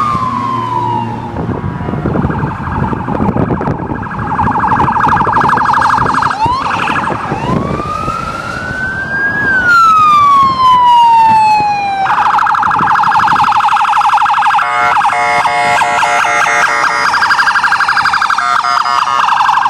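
Electronic police car siren cycling through its patterns: slow wails that climb to a peak and fall away, a fast warbling yelp, and about two seconds of a choppier rapid pulse in the second half.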